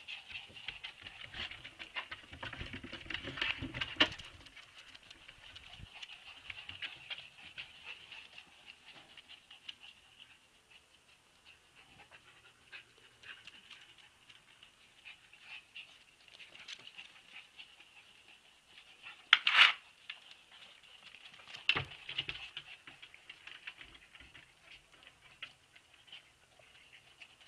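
Siberian husky puppies making small dog sounds as they run and play, with two short, loud, sharp sounds about two-thirds of the way through.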